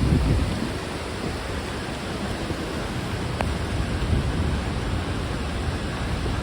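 Låtefossen waterfall's water crashing down, a steady rushing noise heaviest in the low end, with a few low swells in strength.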